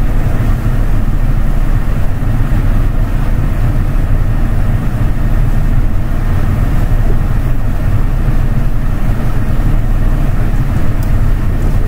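A steady, loud low rumble of background noise with no speech, even throughout.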